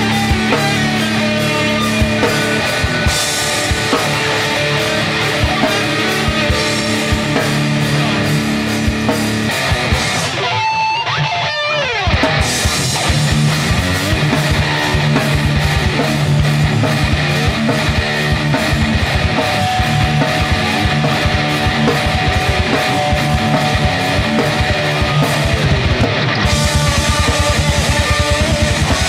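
Live rock band playing with electric guitars, electric bass and drum kit. About ten seconds in the band drops out briefly, leaving a tone that slides down in pitch, then the full band comes back in.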